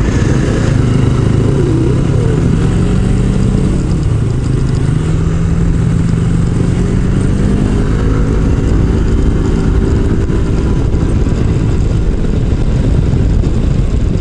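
Yamaha Majesty S scooter's single-cylinder engine running under way, its pitch climbing gradually through the middle, over heavy wind rumble on the microphone.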